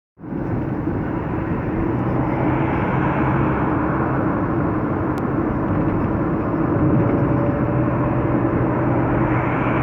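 Sandstorm wind blowing steadily in a dense rush of noise, with a low steady hum underneath.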